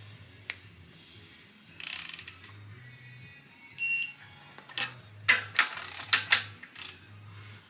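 Wrench ratcheting on cylinder head bolts: a run of sharp clicks in the second half, with a scrape earlier and a short electronic beep about four seconds in. Music plays faintly underneath.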